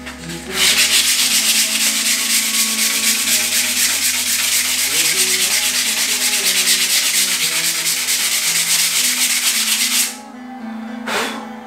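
Sandpaper rubbed quickly back and forth by hand along a hickory hammer handle: a steady, loud rasping hiss as the varnish is sanded down to bare wood. It starts about half a second in and stops about ten seconds in.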